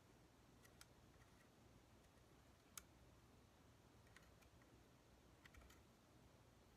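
Near silence with a few faint, sharp clicks, one louder about three seconds in: small screws and scope-ring caps handled by hand while mounting a rifle scope.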